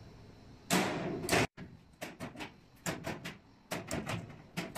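Smart locker vending machine's electric locker locks releasing one after another during a whole-machine test, which opens every locker in turn. A louder clunk comes about a second in, then a run of short, sharp clicks, about two or three a second.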